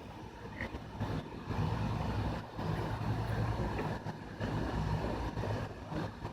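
Traxxas E-Maxx electric RC monster truck driving on a 6-cell LiPo pack, its motor and drivetrain running with a low hum that drops out briefly a few times as the throttle comes off.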